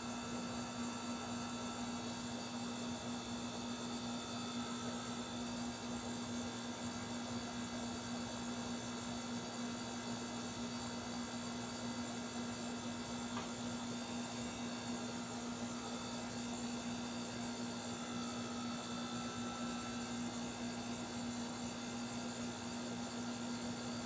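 Steady low hum with one constant tone and fainter high steady tones over a soft hiss, unchanging throughout.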